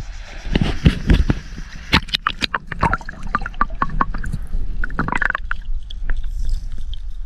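Water sloshing and gurgling, with many short, irregular clicks and knocks in the first few seconds.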